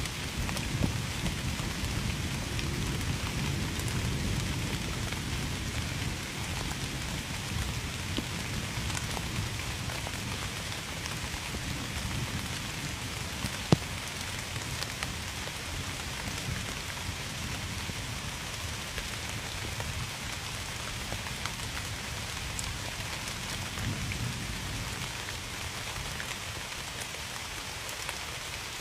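Steady rain falling, with scattered individual drops ticking and one sharp drop-hit about halfway through. A low rumble sits under it in the first few seconds and eases off.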